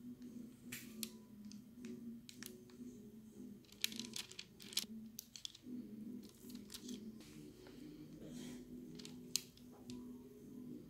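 Piping bag crinkling and the metal star nozzle ticking against parchment paper as stiff cookie dough is squeezed out into rosettes: scattered sharp crinkles and clicks, thickest about four to five seconds in.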